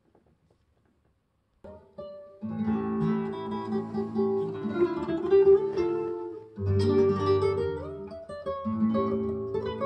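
Recorded acoustic guitar music playing through JBL 4309 loudspeakers driven by a JBL SA750 streaming amplifier. It starts about a second and a half in, with plucked notes in phrases.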